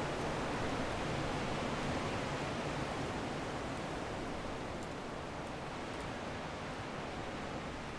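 Strong wind blowing: a steady, full rushing noise that eases slightly about halfway through.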